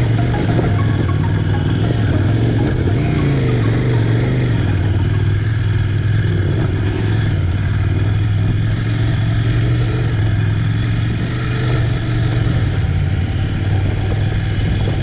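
Off-road vehicle engine running steadily under load on a trail, with a brief rise and fall in pitch about three seconds in.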